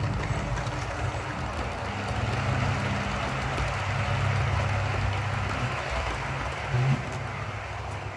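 Model train of Mk2 coach models running past on a model railway layout: a steady rumble of wheels on the track with a low motor drone, and a brief knock a little under seven seconds in.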